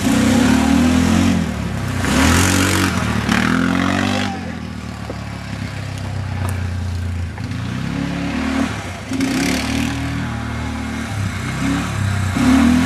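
ATV engines revving, the pitch rising and falling as the throttle is worked on the trail. Loudest in the first few seconds, quieter in the middle, then loud again near the end.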